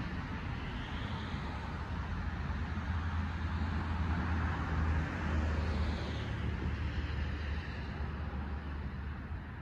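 Steady rumble and hiss of road traffic, swelling for a few seconds around the middle as a vehicle passes.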